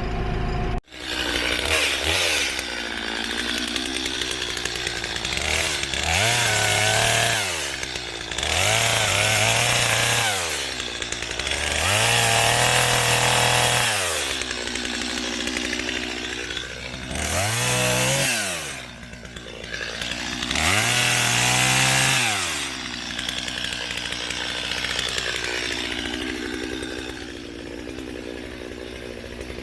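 Two-stroke chainsaw running, revved to full throttle in five bursts of one to two seconds each and dropping back toward idle between them, as it cuts wood.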